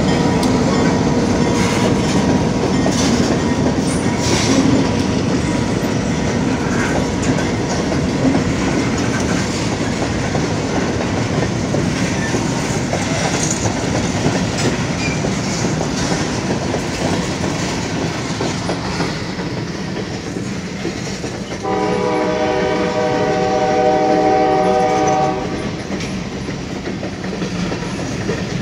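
Freight train's covered hopper cars rolling past close by: a steady rumble of wheels on rail with clickety-clack over the joints. About three-quarters of the way through, a locomotive horn blows one long, steady chord of about three seconds.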